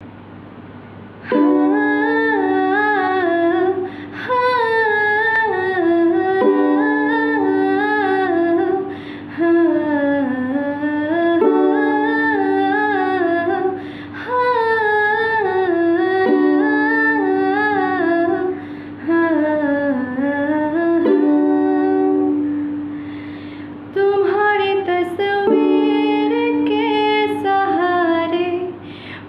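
A woman singing a slow Hindi song to her own ukulele strumming, in phrases of a few seconds with short breaths between them. The voice comes in about a second and a half in, after a quieter opening.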